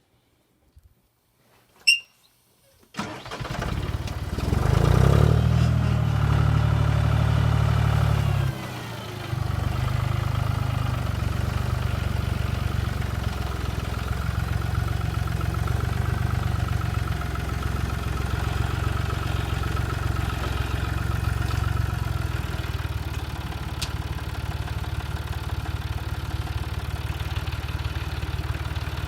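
Homemade band sawmill's motor starting up about three seconds in and then running steadily, with a short drop in level at about eight and a half seconds.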